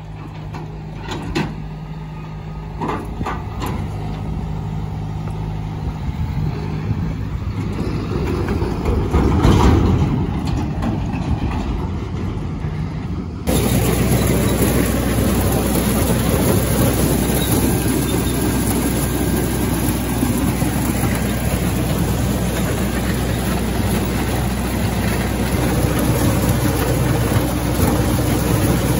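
A John Deere tractor engine runs as it pulls a John Deere 300 corn picker, with a few sharp clicks in the first few seconds and the engine growing louder toward the middle. About halfway through, the sound changes abruptly to louder, steady farm-machinery noise as husked corn ears pour out and are carried up an elevator.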